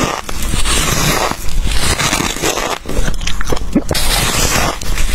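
Close-miked biting and chewing of a big chunk of fluffy freezer frost: dense crunching in several bouts broken by brief pauses.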